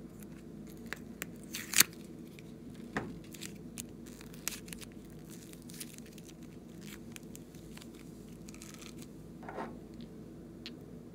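Hands handling a plastic duck-shaped container and squeezing and pulling soft clay, giving scattered sharp clicks, crackles and squishy tearing sounds. The loudest click comes about two seconds in. A faint steady hum runs underneath.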